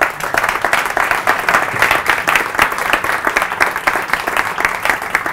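Audience applauding: dense clapping from many hands that starts abruptly and keeps up steadily, at the close of a talk.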